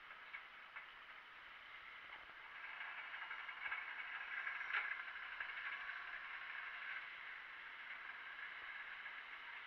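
Charcoal rotisserie barbecue's electric skewer drive running, a steady mechanical whir and rattle that grows louder about two and a half seconds in, with a single click near the middle.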